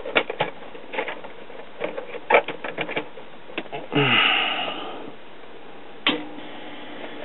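Clicking and rattling as a television's power plug and cord are handled and plugged in. About four seconds in comes a brief rush of noise that fades over about a second, then a single sharp click near six seconds.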